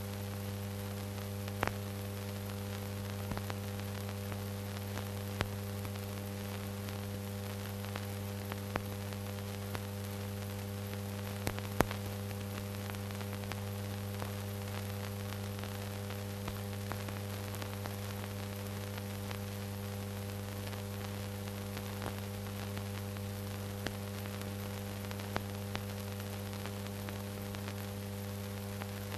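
Steady electrical mains hum with hiss and scattered clicks and pops, the noise floor of an old film transfer with no recorded sound. No train sound is heard; the loudest click comes about twelve seconds in.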